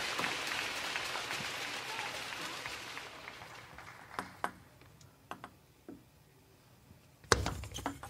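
Crowd applause after a won point, fading away over about three seconds. Then a few sharp clicks of a table tennis ball, and a loud knock near the end.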